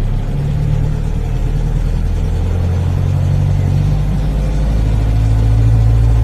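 Kia Sportage engine running steadily just after a cold start at about −32 °C on 0W20 oil, its idle note stepping down slightly about four seconds in.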